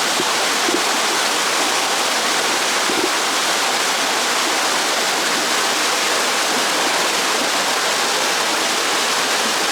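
Waterfall pouring, a steady unbroken rush of falling water.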